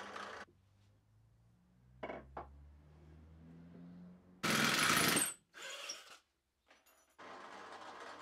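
Benchtop drill press running, its bit boring into solid black walnut, stopping about half a second in. Then a couple of clicks and a faint hum, a short loud burst of noise a little before the midpoint with a shorter, weaker one after it, and from about seven seconds in the drill press motor running steadily again.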